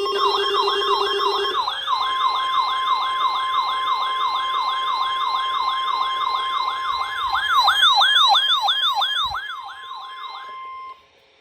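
Emergency alert siren: a fast wail rising and falling about three times a second over a steady high alarm tone. A buzzing steady tone sounds with it for the first second and a half, and everything cuts off near the end.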